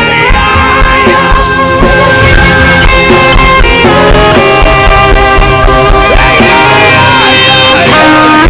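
Loud live gospel worship music from a band, with a held melody line that glides between notes over a steady low accompaniment.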